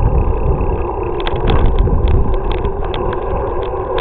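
Low rumble of a bicycle riding over skate-park concrete, with wind on the microphone and scattered clicks and rattles.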